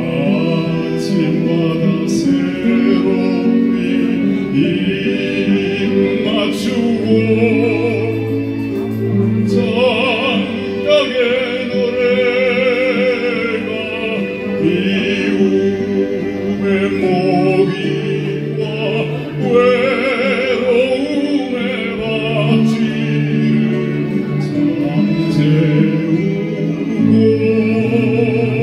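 A classically trained male tenor voice sings a slow Korean song with wide vibrato, accompanied by an electronic keyboard playing sustained chords and a bass line.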